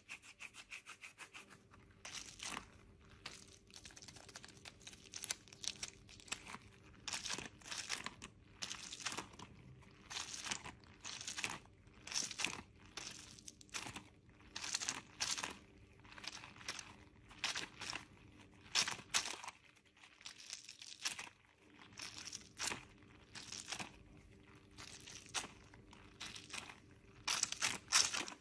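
Irregular crinkling and rustling handling noise in short bursts, opening with a quick run of clicks; the loudest burst comes near the end.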